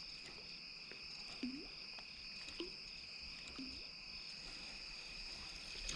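Steady evening chorus of crickets and other insects, a continuous high trilling with a pulsing beat in it. Three faint, short, low blips come about a second apart.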